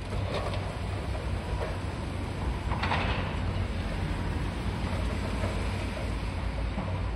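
High-reach demolition excavator running with a steady low drone while its jaw crunches the concrete of an upper floor. Debris clatters down several times, loudest about three seconds in.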